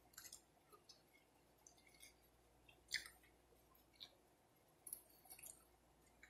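Close-miked eating sounds: a fried chicken wing bitten and chewed, a scatter of small crisp crunches and mouth clicks, the loudest about three seconds in.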